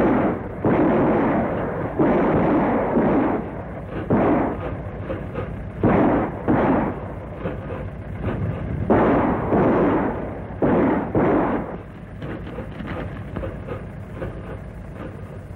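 Gunshots from a gunfight on an old, muffled film soundtrack: about eight shots at uneven spacing, each with a long echoing tail. They stop about twelve seconds in, leaving a steady hiss.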